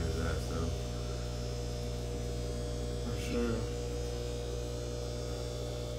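Steady electrical hum with several fixed tones, from the fish room's aquarium equipment: air pumps running the sponge filters.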